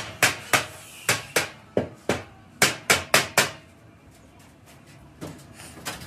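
Hand hammer striking the rim of a rolled iron-sheet air compressor tank shell: about ten sharp metal blows at an uneven pace over the first three and a half seconds, then a pause, then a couple of lighter knocks near the end.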